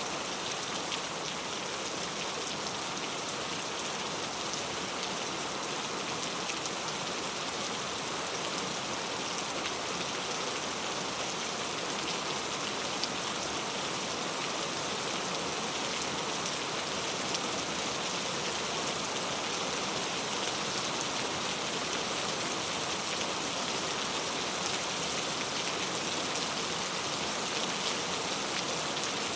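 Steady rain ambience: an even hiss of falling rain with scattered fine drop ticks.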